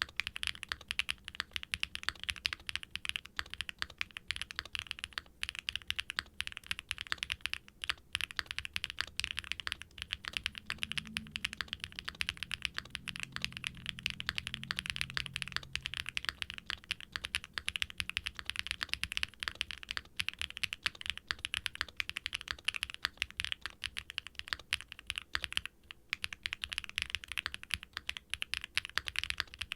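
Steady fast typing on a Qwertykeys QK65 V2 aluminium mechanical keyboard with factory-lubed Keygeek Y3X linear switches and GMK double-shot ABS keycaps: a dense run of deep, creamy keystrokes.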